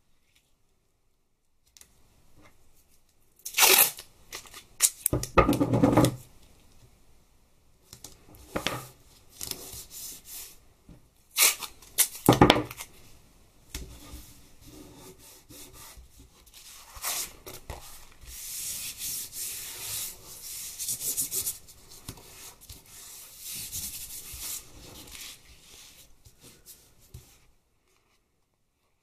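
Masking tape being pulled off the roll and torn in several short ripping bursts, then hands rubbing the strips down over card and plastic sheeting in a longer stretch of rubbing and rustling.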